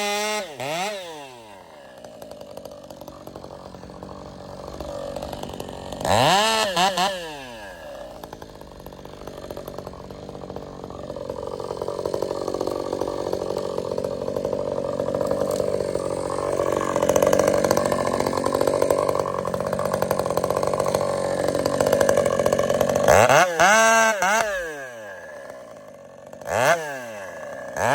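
Ported Husqvarna 562xp chainsaw with an expansion pipe. It drops from full throttle to idle, is blipped once, then runs for a long stretch under load in a cut through wood. Near the end it is revved up and let back down twice.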